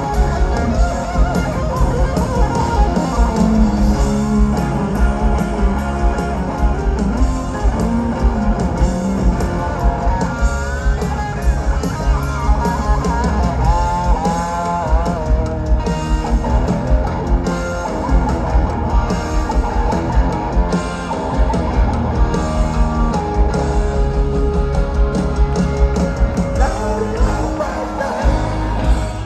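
Hard rock band playing live through a stadium PA, loud and unbroken. A lead electric guitar plays over drums and bass, with notes bent up and down in pitch.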